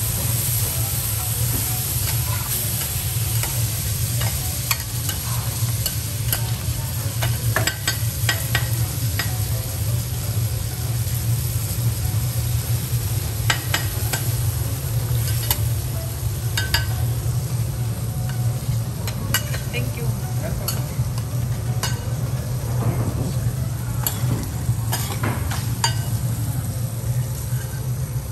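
Seafood sizzling on a teppanyaki steel griddle while metal spatulas scrape and tap against the hot plate, with many sharp clicks scattered throughout. A steady low hum runs underneath.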